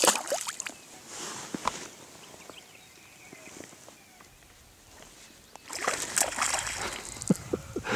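Pond water splashing and sloshing: a brief splash at the start as a released largemouth bass goes back into the water, then a longer stretch of sloshing about six seconds in.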